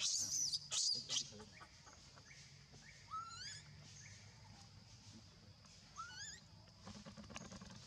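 Baby monkey squealing loudly and high-pitched in the first second, then two shorter rising squeaks about three and six seconds in.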